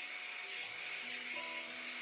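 Small handheld mini blower running steadily with an airy hiss, over background music with held notes.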